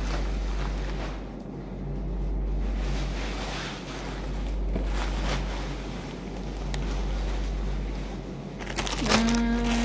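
Thin plastic raincoat rustling and crinkling as it is pulled off and handled, in uneven swells. Near the end a person briefly hums.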